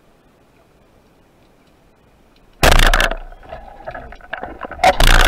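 Band-powered wooden speargun fired underwater: faint clicking gives way about two and a half seconds in to a sudden loud crack of the released bands and shaft, followed by rattling and crackling and a second loud, rough burst near the end.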